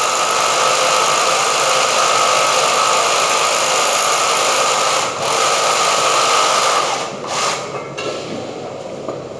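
Handheld power drill running steadily with a high whine, briefly easing about five seconds in. It stops about seven seconds in, followed by a few short bursts.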